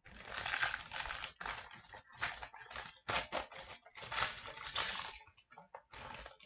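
Foil trading-card pack crinkling and tearing as it is opened by hand, in a run of rustles that stops about five seconds in.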